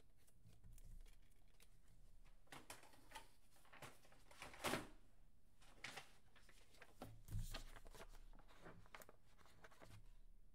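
Faint rustling and light clicks of trading cards and paper being handled on a desk, with two louder handling noises about four and a half and seven and a half seconds in.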